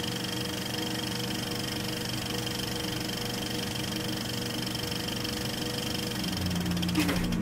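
Steady machine-like hum made of several held tones. Its low end shifts about six seconds in, and a sharp click comes near the end.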